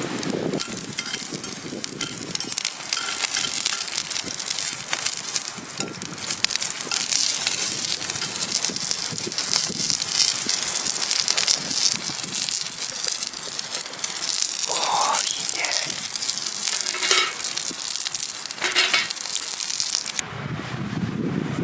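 Steak sizzling as it sears in a hot pan over a campfire, a dense steady hiss with small crackles. It cuts off abruptly near the end, giving way to wind on the microphone.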